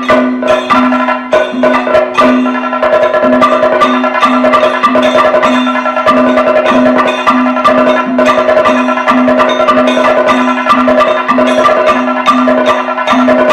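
Kathakali percussion without singing: chenda and maddalam drumming in dense strokes while a chengila bell-metal gong is struck in a steady, ringing rhythm.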